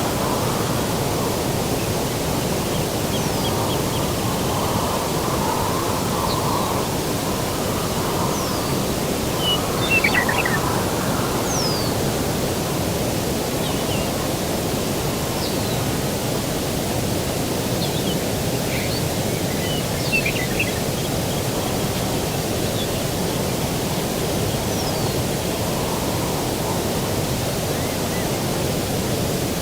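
Steady low outdoor rushing noise of breeze and distant surf, with scattered short bird chirps and calls over it, the loudest cluster about ten seconds in and another around twenty seconds.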